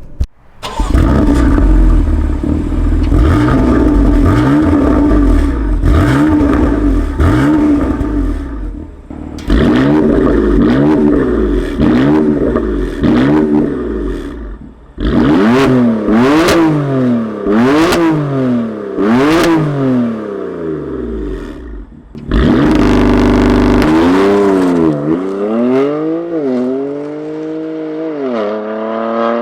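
BMW M4's twin-turbo inline-six through a loud sport exhaust, in several cut-together clips: the engine revs up and down again and again, with sharp cracks between blips around the middle, and the revs drop away near the end.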